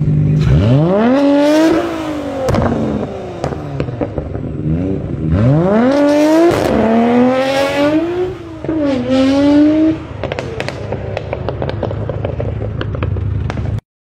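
Nissan Skyline R34's straight-six engine revving hard as the car pulls away, pitch rising steeply, dropping and climbing again through gear changes. Near the end the exhaust pops and crackles on the overrun.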